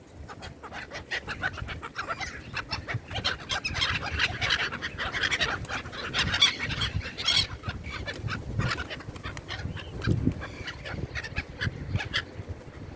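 A flock of seabirds calling over one another in a dense chatter of short, sharp cries as they crowd in for bread, busiest in the middle and thinning toward the end.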